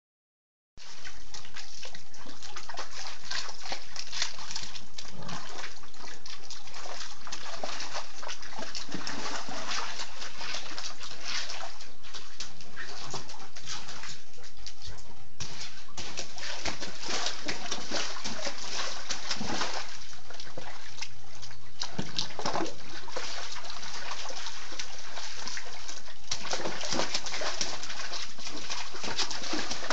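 A dog splashing about in shallow water on concrete, pawing and shoving a rock along the bottom: repeated splashes, sloshing and knocks over a steady hiss.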